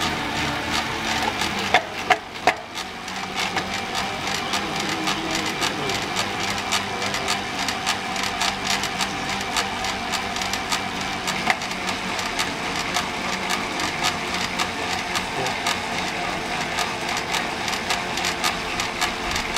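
Bicycle turbo trainer whirring steadily as a time-trial bike's rear wheel spins against its roller under pedalling, with a dense run of small ticks from the drivetrain. A few sharper clicks come about two seconds in.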